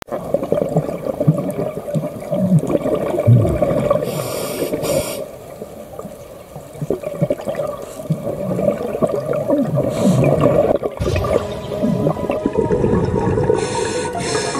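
Underwater sound of a scuba dive picked up by a GoPro in its housing: continuous bubbling and rumbling water with a diver's regulator breaths. Two short hissing bursts come about four seconds in and near the end.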